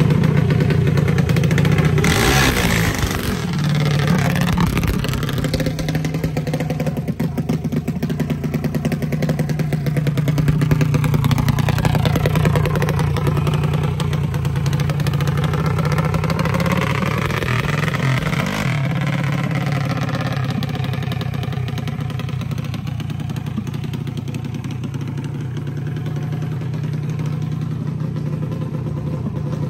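Junior dragster's single-cylinder engine running at a steady idle, its pitch swelling up and dropping back twice, about two seconds in and again around eighteen seconds.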